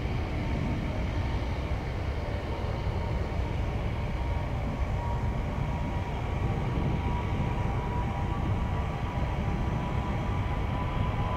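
Jet airliner engines running: a steady low rumble with faint whining tones above it.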